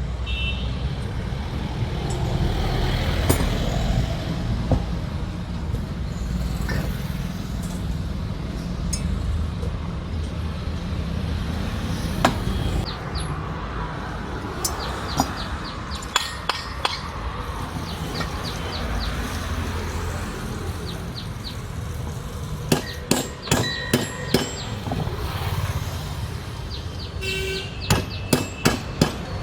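Metal tools and starter-motor parts clinking and tapping against each other, with short runs of quick sharp strikes near the end, over a steady low background rumble.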